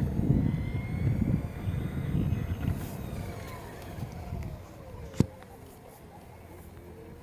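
A motor vehicle passing by: a low rumble that fades out over about five seconds while its tone falls in pitch as it goes away. There is one sharp click about five seconds in.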